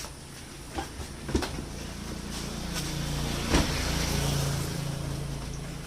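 A motor vehicle's engine hum and road noise swell and then fade, as of a vehicle passing close by. A few sharp knocks sound over it, the loudest a little past the middle.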